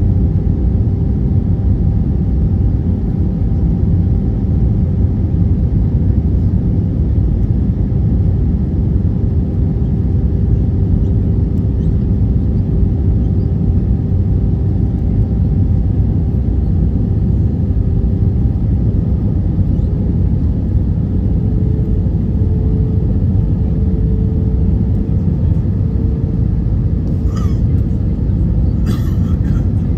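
Steady cabin noise of an Airbus A320 in flight: a low rumble of engines and airflow, with a faint engine tone that shifts slightly higher about two-thirds through. A few faint clicks near the end.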